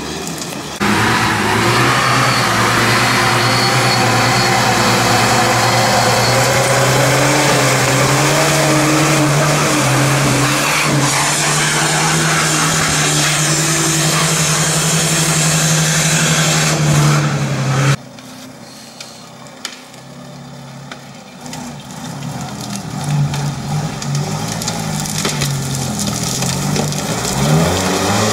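UAZ-469 off-roader's engine running hard at high revs as it churns through deep mud and water, a loud steady drone that holds for most of the time. About two-thirds of the way through the sound cuts to a quieter engine that revs up and down, rising near the end as another UAZ-469 comes on through the mud.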